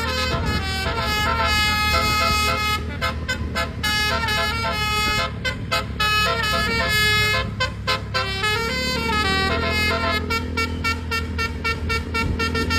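Basuri telolet horn, a multi-tone musical vehicle air horn, playing a quick melody of stepped notes, over a steady low hum.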